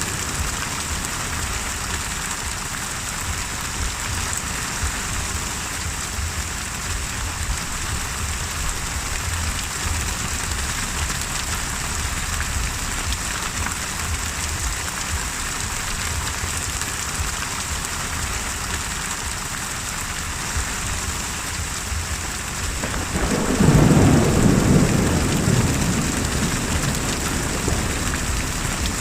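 Steady heavy rain hissing, with a rumble of thunder breaking in near the end, swelling and slowly fading over several seconds.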